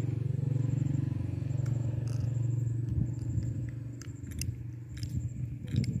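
A steady low engine hum, like a vehicle running, which fades after about three seconds. Over it come a few sharp metallic clicks and scrapes of galvanised razor wire being twisted onto the line wire with pliers.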